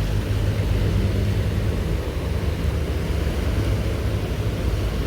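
Steady rush of a fast-flowing river, a continuous even noise heavy in the low end.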